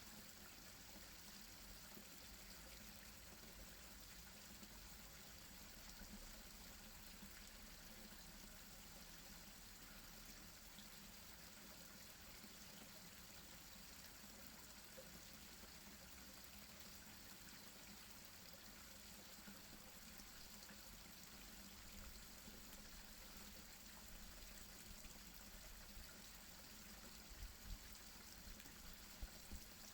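Garden pond waterfall: a faint, steady splash of running water. A few soft low bumps come near the end.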